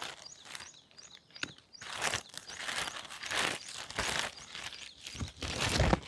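Thin black plastic sheet rustling and crinkling in several bursts as it is shaken open and spread out on stony ground.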